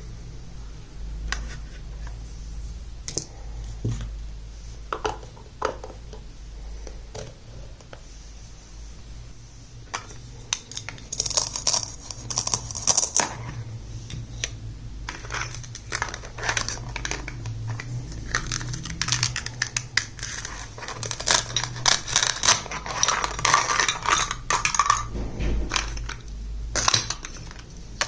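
Small plastic toy kitchen pieces being handled and set down: scattered light clicks at first, then a busy run of clicking and clattering from about ten seconds in.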